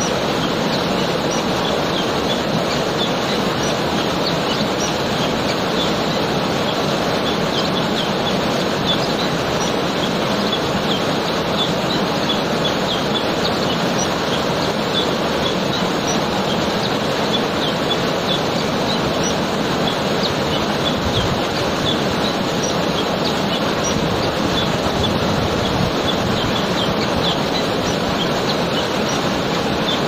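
Waterfall pouring over rocks in a steady rush, with small birds chirping over it again and again.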